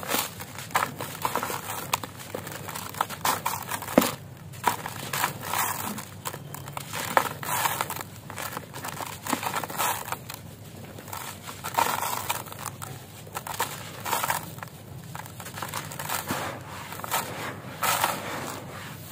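A dry, porous block of cement-bonded gravel crumbling in the hands, its grit and dust trickling and pattering into a plastic tub as dense, irregular crunching and crackling, with a sharp crack about four seconds in. Near the end the hands dig and rub through the heap of loose grit.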